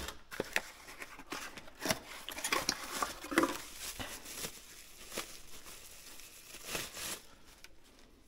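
Scattered light clicks, taps and rustling as an ATV stator is handled and turned over on a workbench, quieting near the end.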